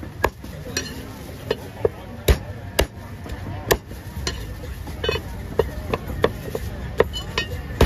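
Cleaver chopping on a wooden cutting board in sharp, uneven strokes, about two a second, the sound of a vendor cutting up salted chicken.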